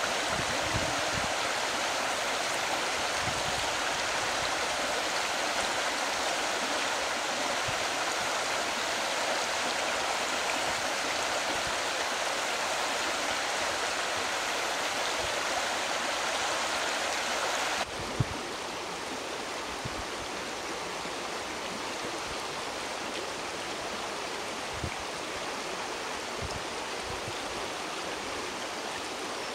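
Shallow rocky stream running: a steady rush of water that steps down a little quieter a little past halfway, with one short knock just after the change.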